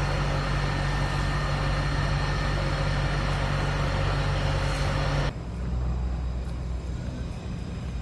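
A steady mechanical rumble, like a running engine, with a faint high hum. It cuts off suddenly about five seconds in and gives way to a quieter, uneven low rush.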